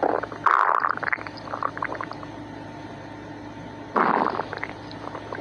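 Human stomach growling: a gurgling burst lasting about a second with a few trailing gurgles, then another gurgle about four seconds in.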